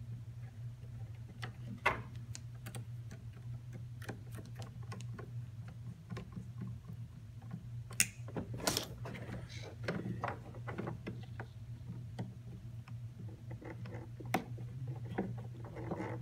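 Small clicks, taps and rustles of hands handling the plastic hull and jet-drive steering parts of an RC boat, with a few sharper knocks, the loudest about 8 s in as the hull is tipped and set down. A steady low hum runs underneath.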